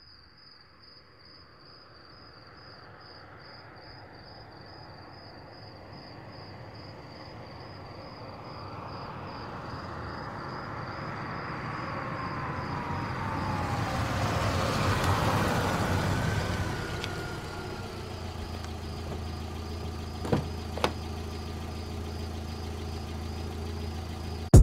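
A Jeep Wrangler drives up and stops, growing louder to a peak about fifteen seconds in, then idling steadily; two sharp clicks near the end come as its door is opened. Crickets chirp in a steady pulsing trill throughout.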